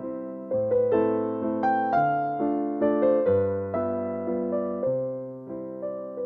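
Background piano music: a gentle melody of struck notes, each fading away, over a slow low bass line.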